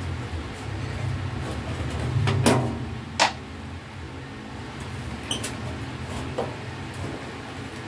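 Screwdriver working on the screws of an arc welding machine's metal casing, with small metallic clicks and clinks of the tool and screws: two loud ones about two and a half and three seconds in, lighter ones later. A steady low hum runs underneath.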